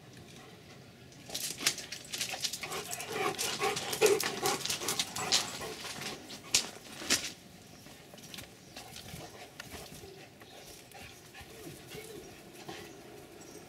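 Two Rottweilers playing together, making dog sounds and scuffling. The sounds are busiest for about six seconds from a second in, with many sharp clicks, then drop to fainter noises.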